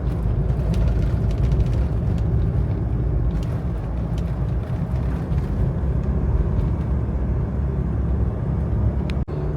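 Cabin sound of a 1993 Mitsubishi Pajero V46's diesel engine pulling steadily up a hill, a dense low rumble mixed with road and tyre noise.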